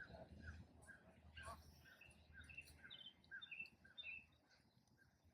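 Faint bird song: a long run of short, repeated chirps, about two or three a second, over quiet outdoor background.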